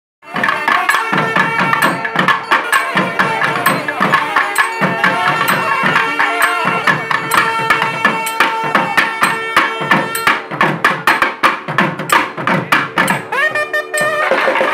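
A nathaswaram ensemble plays South Indian temple music with thavil drum. Several double-reed nathaswarams play the melody over a steady drone, with sharp thavil strokes throughout. From about ten seconds in the drum strokes come fast and dense, and a pipe glides back in near the end.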